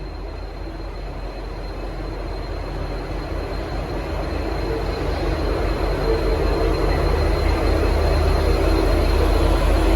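Steady rumble of a train, growing louder throughout as it approaches.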